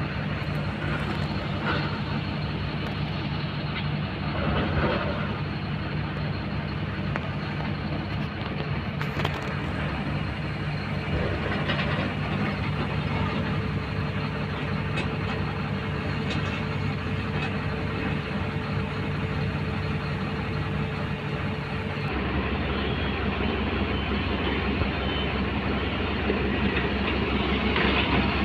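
Heavy diesel engine running steadily, a low drone that changes abruptly in pitch and level about 22 seconds in.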